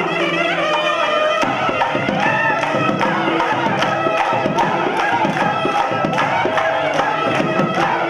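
A group of devotees singing an Ayyappa devotional bhajan together, with hand percussion and jingling tambourine-like strokes keeping a steady beat.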